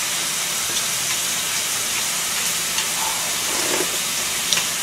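Thin slices of fresh pork belly sizzling in a hot pan, a steady hiss with a few small pops of spitting fat.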